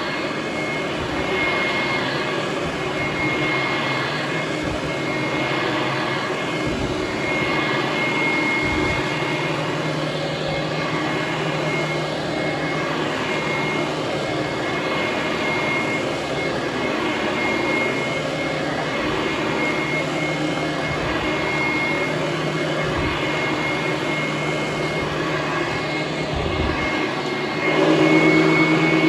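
Hoover Conquest direct-air upright vacuum running steadily over carpet: a loud, jet-engine-like rush of air with a steady high whine. It gets louder about a second before the end.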